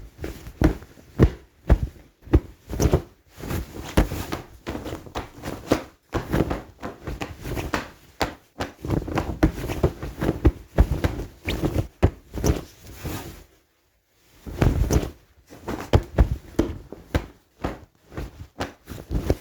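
Rapid hand-to-hand fight sound effects: a karate gi's cloth snapping and swishing with fast punches, blocks and hits, several impacts a second. There is a brief pause about two-thirds of the way through, then the flurry resumes.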